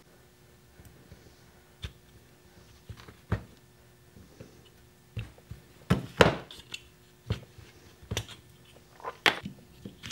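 Scattered clicks and knocks of hard plastic 3D-printed PLA mold pieces and needle-nose pliers against plaster and the tabletop as the plastic parts are worked out of a plaster mold. The loudest knocks come about six seconds in.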